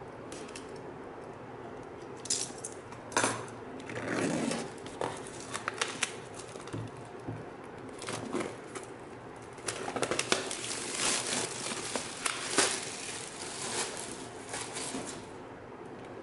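Clear plastic shrink-wrap being slit and peeled off a cardboard box, crinkling and crackling in irregular bursts with small knocks of hands and a knife against the box. The handling is busiest through the middle and eases off near the end.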